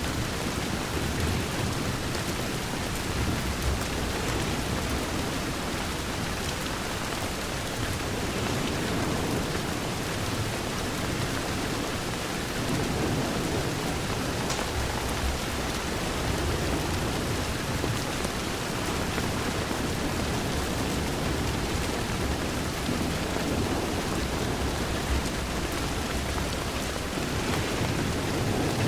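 Steady heavy rain against a window, with a continuous low rumble underneath.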